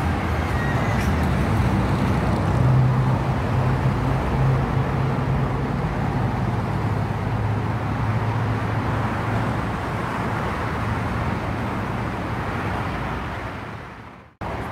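Steady rumble and hiss of freeway traffic on the elevated roadway overhead, fading out near the end.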